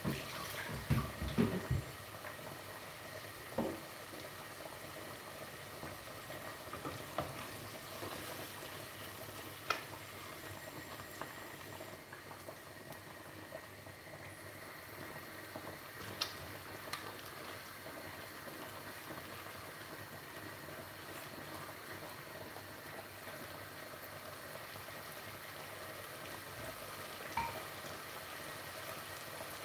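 Pots cooking on a gas hob make a steady, quiet bubbling hiss: sauce simmering and pasta water boiling. A few short knocks and scrapes come from a silicone spatula stirring the sauce pot, most of them in the first two seconds, with single ones later on.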